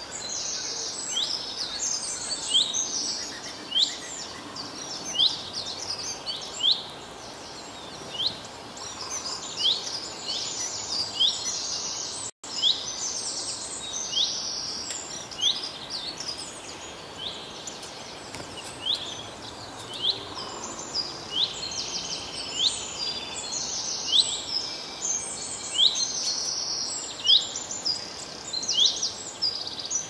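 Small songbirds chirping: a steady stream of short, high, sharp calls, often several a second and overlapping, over a faint outdoor hiss. The sound breaks off for an instant about twelve seconds in.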